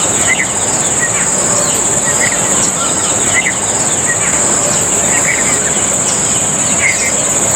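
Steady high-pitched insect drone, with short bird chirps repeating every second or so over it.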